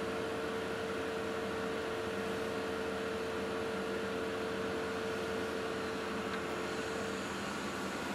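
Excavator's diesel engine and hydraulics running steadily, heard from inside the operator's cab as the arm works a bucket of sand. A steady high hum rides on top and stops about seven seconds in.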